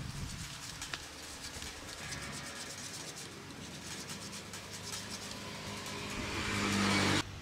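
A motor vehicle's engine humming nearby, growing louder toward the end and then cutting off suddenly, with a few faint scrapes of a small knife shaving a piece of wood.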